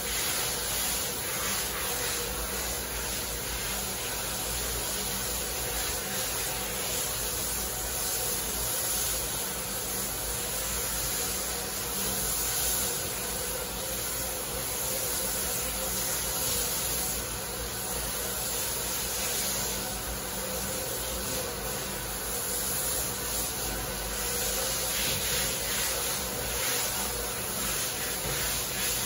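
Water from a handheld shower sprayer running steadily onto a wet dog's coat and into a stainless steel grooming tub.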